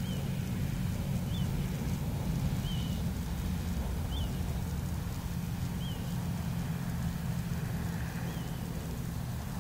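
A bird repeating a short high chirp about every second and a half, over a steady low hum like a distant engine, with light wind.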